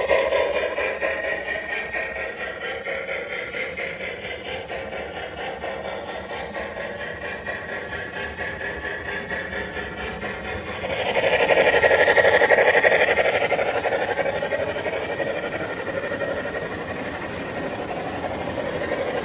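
O-scale MTH CNJ P47 Pacific model steam locomotive running, its sound system giving a steady, regular chuff of about two to three beats a second over the motor and wheel noise. It grows louder and fuller for a few seconds about eleven seconds in, then settles back.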